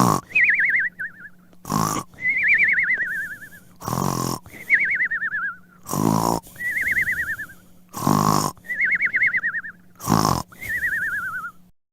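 Cartoon snoring sound effect, repeated six times: a short harsh snort on each in-breath, then a warbling whistle that falls in pitch on the out-breath, about every two seconds.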